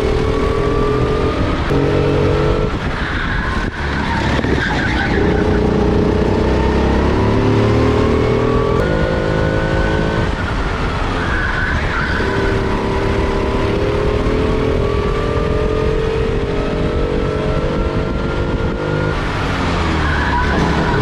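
Four-stroke rental kart engine heard from onboard at racing speed, its pitch climbing steadily along each straight and dropping off sharply for each corner, about four times.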